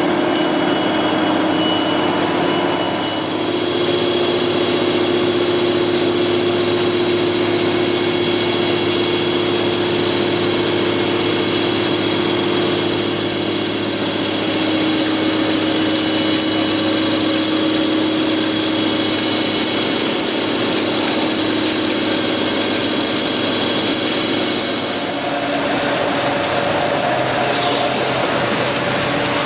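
Pama horizontal boring and milling machine cutting a large metal workpiece under coolant spray: a steady machine hum with several held tones over an even hiss. The tones shift to a different set near the end.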